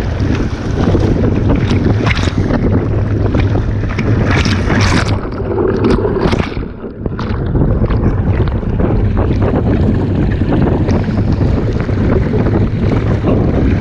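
Wind buffeting the microphone over rushing, splashing water on a small boat under way, loud and continuous, with a few louder gusts or splashes partway through.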